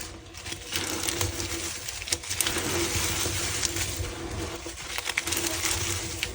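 Confetti being handled, a dense crackling rustle made of many small clicks that keeps going without pause.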